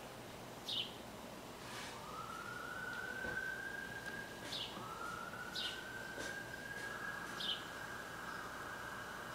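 A faint siren that winds up in pitch twice and holds a steady note, under a bird's short falling chirp repeated every second or two.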